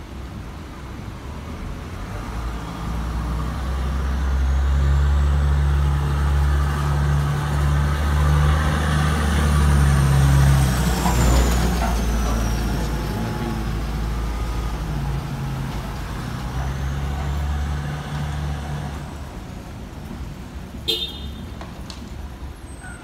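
A heavy diesel truck's engine running as the truck drives slowly past close by, growing louder to a peak about halfway through and then fading away. A short, sharp high squeak near the end.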